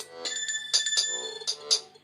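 Alcatel One Touch mobile phone playing one of its built-in ringtones: an electronic melody of several held notes at once over a beat of sharp strokes about four times a second.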